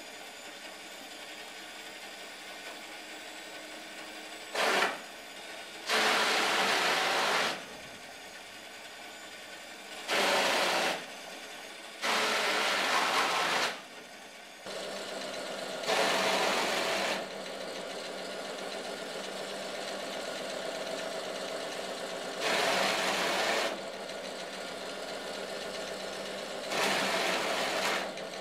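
Repaired shredder running with a steady motor hum. About seven times, a louder burst of tearing noise lasting a second or so comes as cardboard is pulled through the cutters. The hum steps up a little about halfway through.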